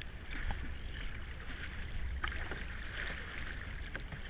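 Kayak paddle strokes splashing through river water, with scattered drips and small knocks, over a low rumble.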